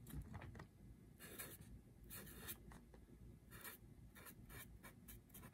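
Faint scratching of a pen writing on paper, in short irregular strokes.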